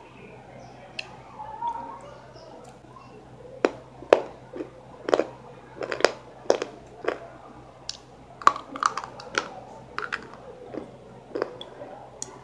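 Close-up crunching and chewing of something hard: about a dozen sharp, irregular crunches, densest in the middle and later part.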